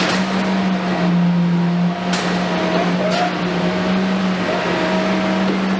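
Komatsu PC210 excavator's diesel engine and hydraulics working under load: a steady hum that steps slightly up and down in pitch, with a few sharp knocks near the start and about two and three seconds in.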